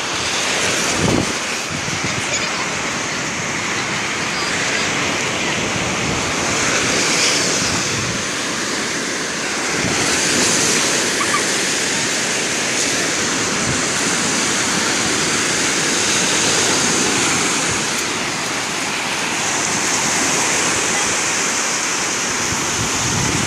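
Ocean surf breaking and washing up a sandy beach, a continuous rush that swells every few seconds as waves come in.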